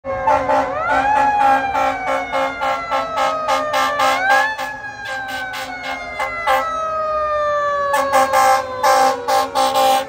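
Fire truck's Federal Q2B mechanical siren winding up twice and then slowly coasting down in pitch. A fast pulsing warning sound of about three pulses a second runs over it. It breaks off briefly and returns louder about eight seconds in as the truck approaches.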